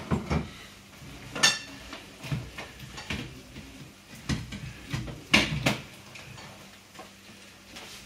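Kitchenware clinking and knocking on a counter as a blender jug and containers are handled, in a string of separate knocks. One clink about a second and a half in rings briefly, and a sharper clatter comes a little past five seconds.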